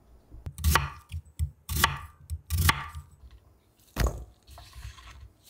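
A knife chopping vegetables on a cutting board: four heavy chops roughly a second apart.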